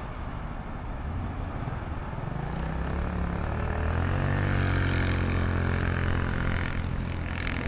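A passing engine: a low drone that builds over several seconds, loudest about five seconds in, then eases off slightly, with a hiss above it.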